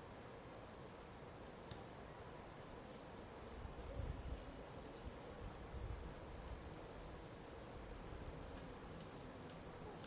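Faint, steady high-pitched chirring of insects in the background, with a couple of low rumbles about four and six seconds in. No clear rhythm of woodpecker pecking stands out.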